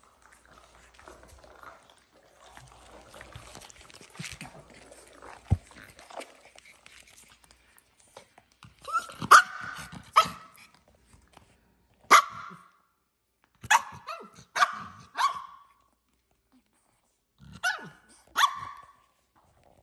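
Nine-week-old Shih Tzu puppies yapping in play: about eight short, sharp barks in small clusters through the second half, after several seconds of quieter scuffling on a pee pad.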